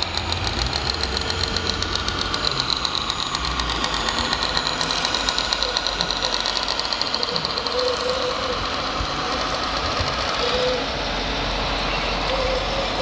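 Scale RC heavy-haulage truck's simulated diesel engine sound from its onboard sound module, running with a rhythmic pulse that smooths out about two-thirds of the way in as the truck crawls along under load.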